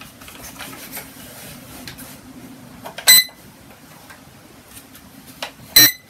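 A small toy drone being handled and switched on: light plastic handling noise, and two short, sharp, ringing clicks or beeps, one about three seconds in and one near the end.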